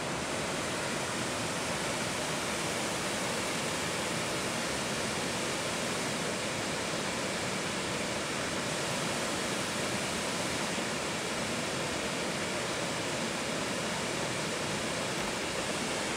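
Steady rushing of water as canal water flows across the path and spills off its edge.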